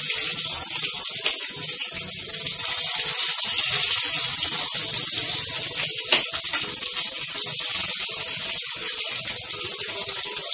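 Stuffed bitter gourds (karela) deep-frying in hot mustard oil in a kadhai: a steady, dense sizzle with scattered fine crackles.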